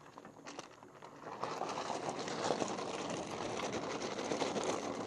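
An electric enduro bike's fat dual-sport tyres crunching over a gravel and grass trail, with rapid rattling from the bike and brushing vegetation. The noise swells about a second and a half in, then holds steady. No motor sound stands out.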